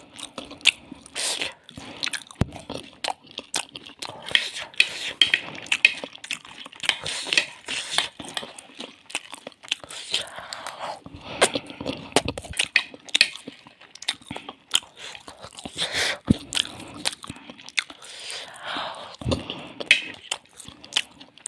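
Someone eating bhelpuri: repeated crunchy bites and chewing, with many sharp, irregular crackles throughout.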